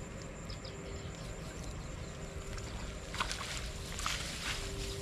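Wind rumbling on the microphone, with a few short rustles and splashes about three to four and a half seconds in as a wet cast net is drawn out of the water and gathered up.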